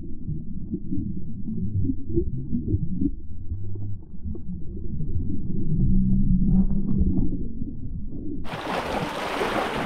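Muffled underwater rumble and gurgling picked up by a submerged action camera in the sea. Near the end the camera comes out of the water, and a sudden bright hiss of splashing, lapping seawater takes over.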